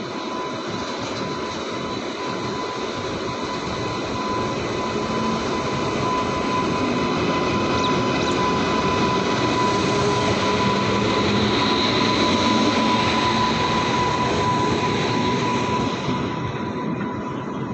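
Express train of ICF passenger coaches rolling along the station track, its wheels giving a steady, thin high-pitched squeal over the rumble. It grows louder toward the middle and eases off a little near the end.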